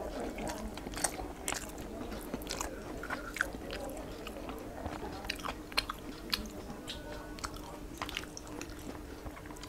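Close-up eating sounds of rice and curry eaten by hand: irregular wet smacking clicks of chewing and of fingers mixing rice on a plate.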